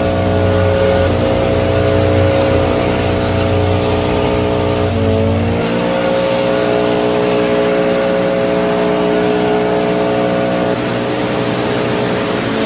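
Small motor of a miniature model tractor running steadily. Its pitch dips briefly about five seconds in, as if it is taking a load, then settles again.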